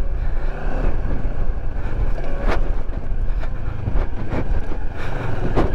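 Moto Morini X-Cape 649's parallel-twin engine running at low trail speed, with wind noise on the helmet microphone. Two sharp knocks come from the bike going over bumps, one about two and a half seconds in and one near the end.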